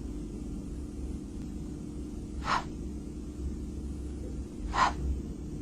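A voice making the unvoiced /h/ consonant twice, two short breathy puffs a little over two seconds apart, over a low steady hum.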